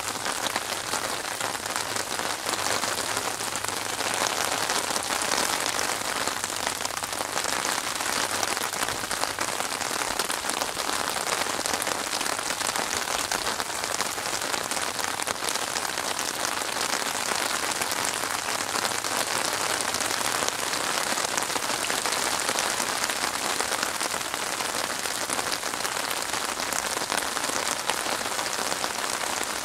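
Steady rain falling on open water, a dense, even patter of drops splashing on the surface.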